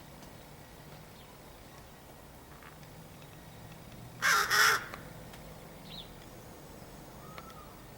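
A crow giving two quick, harsh caws back to back, about four seconds in.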